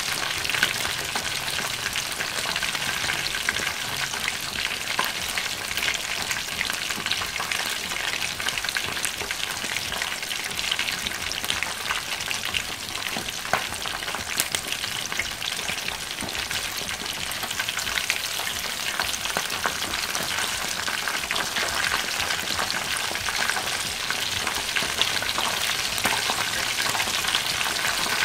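Chicken pieces frying in hot oil in a wok: a steady, dense sizzle and crackle of bubbling oil. The skin is browned golden and crisp on both sides.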